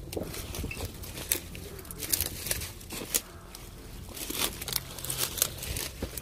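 Footsteps rustling and crackling through dry fallen leaves, twigs and brambles, in irregular bursts.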